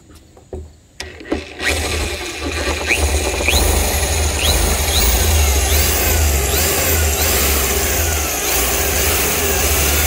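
Electric drill with a long drill bit starting about a second in, then running steadily as the bit cuts through the top of a plastic 55-gallon barrel, with a short high chirp repeating about twice a second.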